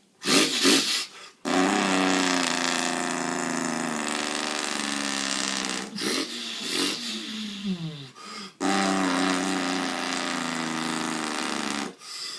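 Man's vocal impression of an International semi truck's diesel engine with a Jake brake. It starts with a few short bursts, then becomes a long steady drone. The pitch falls about six to eight seconds in, and then the drone is held again.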